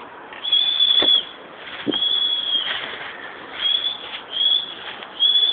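A person whistling five sharp, steady high notes in a row, three held for most of a second and two short, the kind of whistle a pigeon keeper uses to signal a flock in flight. A soft thump comes about a second in.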